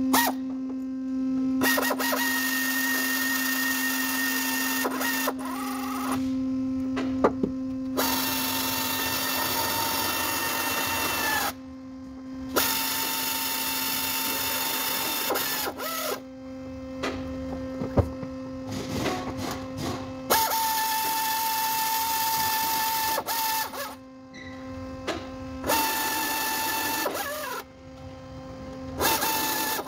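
A cordless power tool whirring in repeated bursts of one to four seconds at a steady pitch, winding down at each stop, as fasteners are worked in a car's engine bay during a water pump job.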